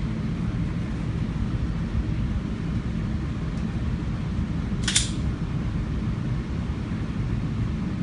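Steady low rumble with one short, sharp crack about five seconds in: a pistol shot fired at a steel plate rack.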